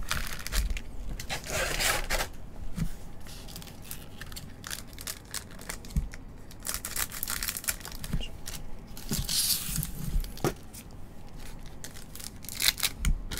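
Foil wrappers of 2023 Bowman Mega Box baseball card packs being handled, crinkled and cut open with scissors. Several stretches of crinkling and tearing come with scattered light clicks; the longest runs from about six and a half to ten seconds in.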